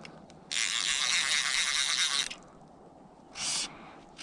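Fly reel's click-and-pawl ratchet buzzing in bursts as line runs through it while a hooked trout is played: a long run of about two seconds, then a short burst near the end.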